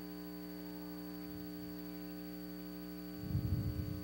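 Steady electrical mains hum, made of many level tones stacked together, with a brief low rumble about three seconds in.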